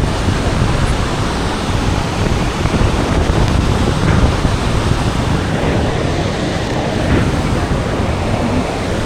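Steady roar of Iguazú Falls, a dense rushing of water heaviest in the low end, with wind on the microphone.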